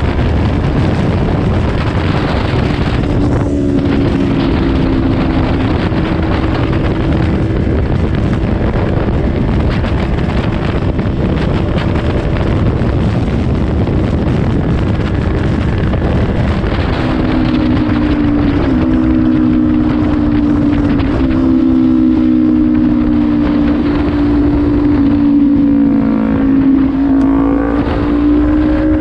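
Kawasaki Ninja 400 parallel-twin engine running at a steady highway cruise under a rush of wind and road noise. Its tone comes through more clearly about two-thirds of the way in, then dips and rises again near the end as the throttle changes.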